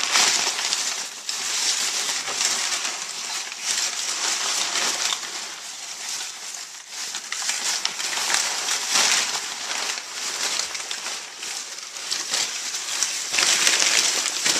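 Brown packing paper rustling and crinkling as a pig noses and tugs it into its blanket bedding, the crackle swelling and fading in waves.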